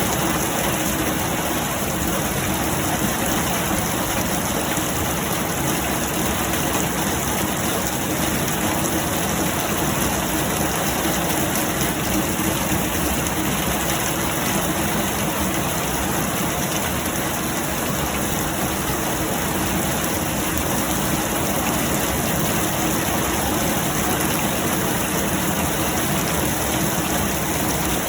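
Heavy rain pouring steadily, an even rushing hiss that never lets up.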